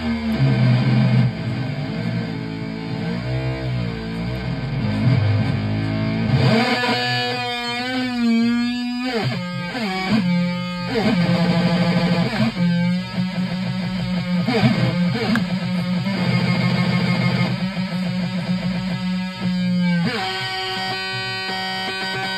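Breadboarded Schmitt-trigger-inverter noise synth running off a solar panel, so its supply voltage fluctuates. It gives out harsh, buzzing electronic tones that warble rapidly in pitch, then jump between held low notes, settling into a steadier cluster of tones near the end.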